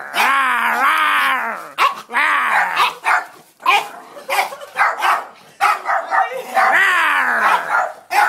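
Dogs barking and yelping excitedly: drawn-out high yelps about a second long that fall in pitch, with a run of short sharp yaps between them in the middle.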